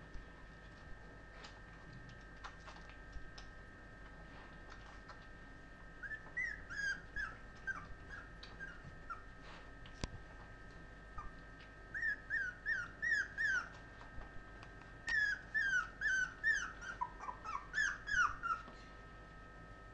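Puppies whimpering in runs of short, high, falling yelps, coming in three bursts about six, twelve and fifteen seconds in.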